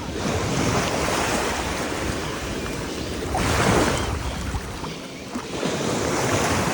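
Sea waves breaking and washing up a beach, the wash rising and falling, with a louder wave surging in about three and a half seconds in.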